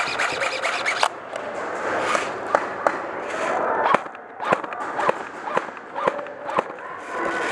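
Airsoft guns firing: a rapid full-auto burst of clicking shots for about the first second, then scuffing and rustling of movement, with scattered single sharp snaps of shots in the second half.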